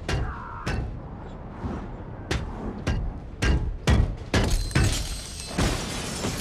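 Film fight sound effects: about seven heavy blows and body slams against a train door's glass window, then the glass cracking and shattering for a couple of seconds.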